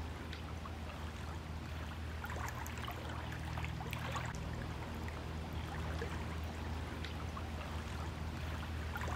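Small waves lapping and trickling at a rocky lakeshore, with faint scattered splashes, over a steady low hum.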